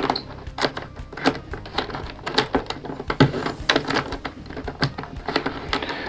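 Wooden sliders and levers of a Jean-Claude Constantin Steuerrad puzzle box clicking and knocking as they are pushed along their tracks and into place. The clicks come irregularly, about two or three a second.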